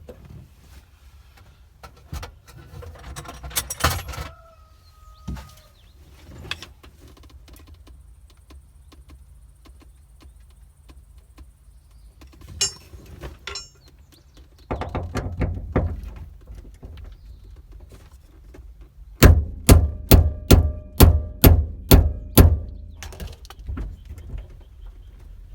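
Handling noises: scattered knocks and clicks, then a run of about nine sharp, loud taps, about three a second, near the end.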